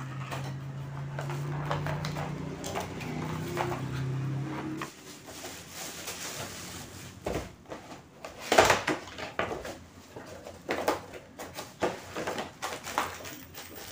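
A steady low hum for the first five seconds or so, then it cuts off. After that, packaging is handled: a plastic bag crinkles and cardboard boxes are opened and set down, with short knocks and one sharp knock about eight and a half seconds in.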